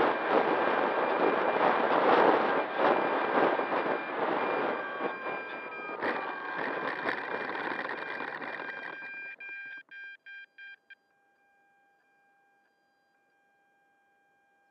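Wind rush and electric motor noise from a camera on board an E-Flite Apprentice STS radio-controlled trainer plane as it lands on grass, with a faint falling whine a few seconds in. The noise dies away with a few brief stutters about ten seconds in, leaving near silence with a faint steady electronic whine.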